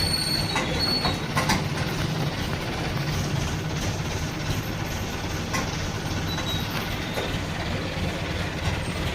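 Steady low mechanical rumble, like running machinery or a vehicle, with a few sharp clicks.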